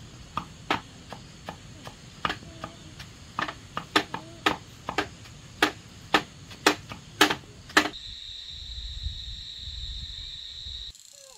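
Blade chopping on a wooden block: about twenty sharp, uneven strikes over roughly eight seconds. Then a steady high insect drone with a low wind rumble takes over.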